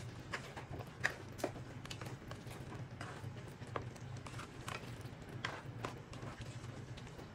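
Spatula stirring chicken in a thick coconut-milk curry sauce, knocking and clicking lightly and irregularly against the pan, over a steady low hum.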